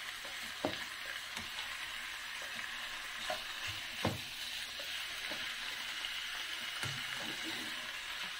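Raw pork pieces sizzling in a nonstick pan while a plastic spatula stirs them, with a few light knocks of the spatula against the pan. The meat is being sautéed until it changes colour.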